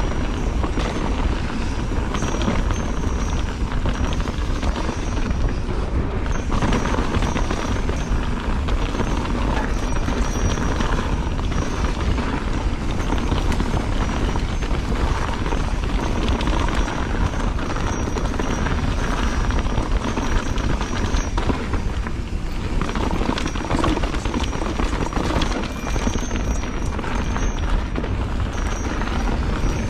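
Wind buffeting an action camera's microphone, mixed with tyre and trail noise from a mountain bike riding fast on dirt singletrack: a steady rushing rumble with no pauses.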